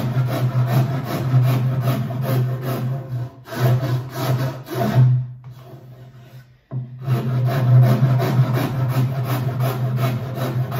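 Hand rasp filing the wooden end of a snooker table cushion rail in quick, even back-and-forth strokes, tidying its shape. The strokes stop for under two seconds about halfway through, then start again.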